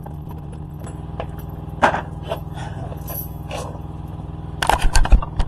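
Tools knocking and clattering against the motorcycle's fender bolts and metal: a couple of light knocks, then a loud burst of clanks near the end, over a steady low hum.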